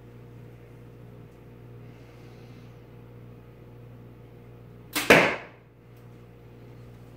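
A compound bow fired once, about five seconds in: a sharp snap of the string and limbs on release, with a short ringing tail, over a steady low hum.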